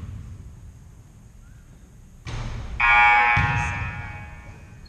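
Gym scoreboard horn sounding once, about three seconds in, held for a couple of seconds and fading out.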